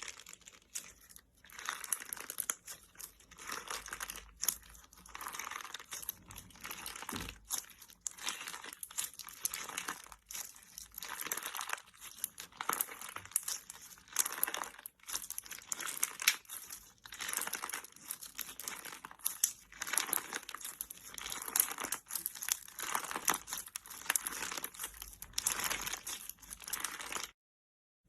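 Slime being squeezed and worked by hand, a dense crackling and popping that comes in surges every second or two and cuts off abruptly near the end.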